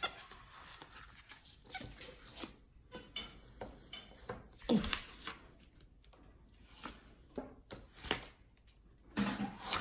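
Felt-tip marker scratching and tapping on paper as a capuchin monkey scribbles, with the paper rustling. A louder short sound comes about halfway, and another near the end.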